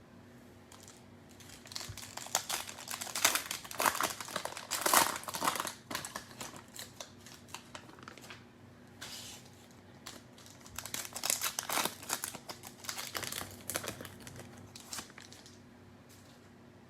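Crinkling of the plastic wrapper on a cello pack of football trading cards as it is torn open and handled, in two spells of a few seconds each.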